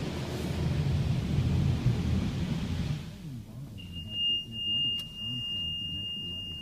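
Car wash water spray hitting the car, a loud, even rush with a low rumble that drops away about three seconds in. A steady high electronic tone follows and holds for about three seconds.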